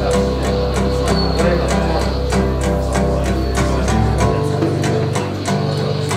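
Recorded music with a steady beat, played through Focal Utopia loudspeakers driven by a full Naim system. A deep held bass note drops away about four seconds in.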